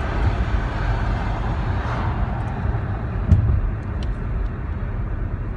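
Steady low rumble of road and engine noise inside a moving car, with a brief thump a little over three seconds in.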